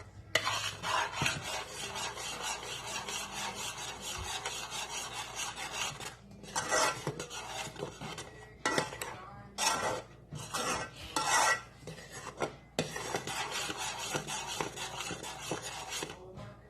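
A utensil scraping and stirring the bottom of a pan in rapid back-and-forth strokes, with a few short pauses, as a thick Yema spread of condensed milk, sugar and butter cooks down. The mixture is nearly done.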